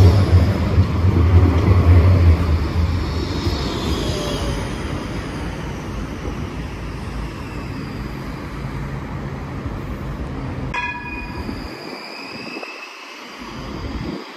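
Brussels TNG (Bombardier Flexity Outlook) trams. One passes close with a loud low electric hum that fades after the first few seconds. Another tram then moves through the stop with high whining and wheel squeal, and a single bell-like ding sounds about eleven seconds in.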